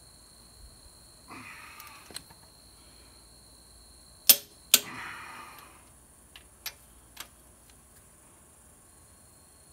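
Click-type torque wrench on a DT466E cylinder head bolt: two sharp clicks about halfway through as the wrench reaches its 150-pound setting. Hard breaths of effort come before and after the clicks, and a few lighter clicks follow.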